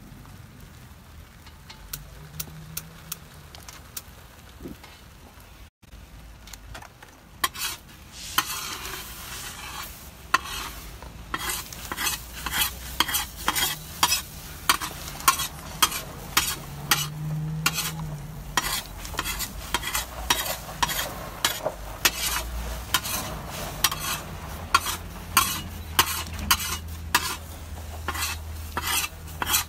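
Gravy being stirred in a hot pan on a propane gas cooker: a utensil tapping and scraping against the pan about twice a second over a sizzle. The first several seconds hold only scattered taps before the steady stirring sets in.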